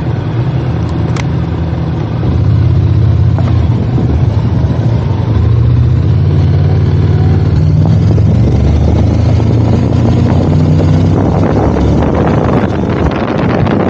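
Motorcycle engine running under way, its pitch shifting with the throttle, with wind noise on the microphone. It gets louder about two seconds in.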